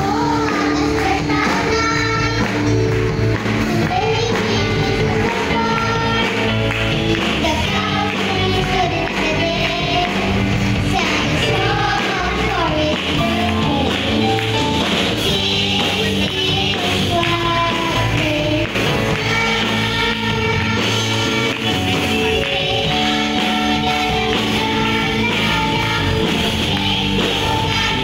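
Children's choir singing a Christmas song with instrumental accompaniment.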